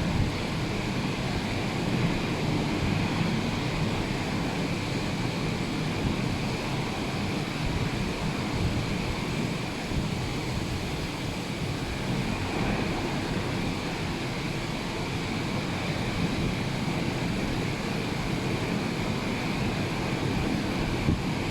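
Rough sea surf washing steadily, with wind rumbling on the microphone.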